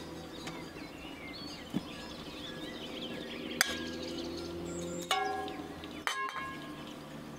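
Aluminium pot lid lifted off a pot of cooked rice: a sharp clink about three and a half seconds in, then a metallic clank with a brief ring about five seconds in and another clink a second later. Faint bird chirps and a low steady hum run underneath.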